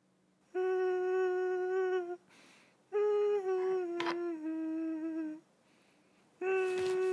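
A man humming a slow tune in three phrases of long held notes, the second phrase stepping down in pitch. A single sharp click sounds about halfway through.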